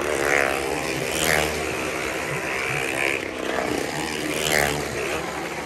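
Motorcycle engines revving as riders circle the wooden wall of a well-of-death drum, the engine note surging and falling back as each bike sweeps past, about four times.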